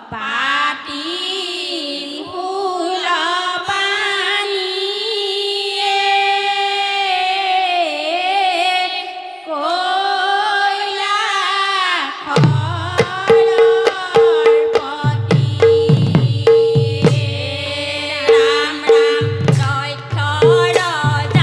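A group of women singing an Assamese devotional song together in a long, slowly moving held melody. About twelve seconds in, a hand drum comes in with regular strokes and the song picks up a rhythmic beat.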